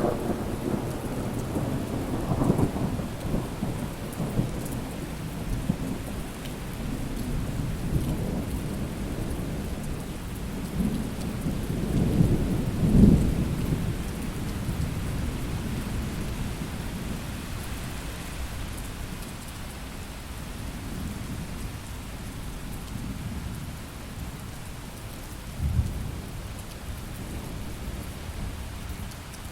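Thunderstorm: rain falling steadily, with rolling thunder. A rumble dies away at the start, a louder roll builds and peaks about halfway through, and a short clap of thunder comes near the end.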